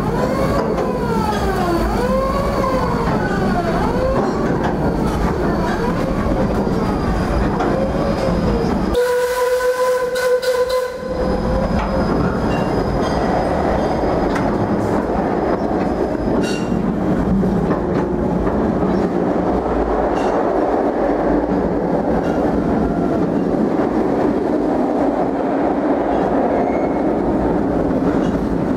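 Narrow-gauge steam train rolling along, its cars rumbling over the rails with a clickety-clack. In the first third a pitched squeal rises and falls about once a second, and about nine seconds in the steam whistle gives one steady blast of two to three seconds.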